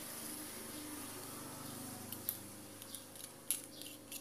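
A plastic strip scraping thermal paste across an LED lamp circuit board, with a few light sharp clicks of it tapping the board in the second half. A low hum runs underneath through the first couple of seconds.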